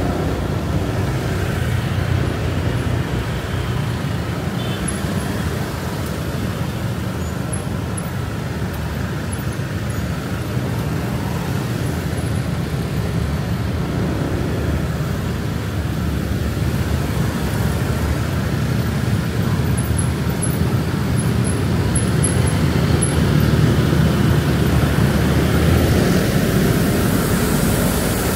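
Steady road noise from riding a motorbike through city traffic: the bike's engine and tyres, wind and the surrounding cars, growing a little louder near the end.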